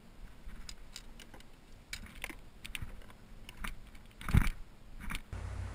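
Light clicks and taps of fishing gear being handled on a plastic kayak, with one louder knock about four seconds in.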